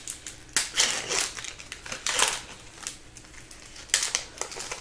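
Foil wrapper of an Upper Deck hockey card pack crinkling and tearing open in the hands, with cards being handled; several sharp crackles about half a second, one and two seconds in, and again near the end.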